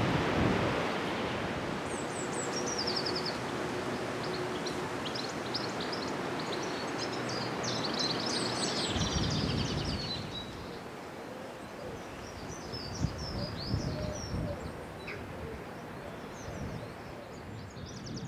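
Several songbirds singing and chirping in quick trills over a steady outdoor rush, busiest in the first half. Low gusts of wind buffet the microphone at the start, in the middle and near the end.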